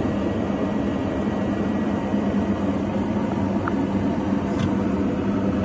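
Steady engine drone: a constant low hum under an even rushing noise, with no change in pitch or level.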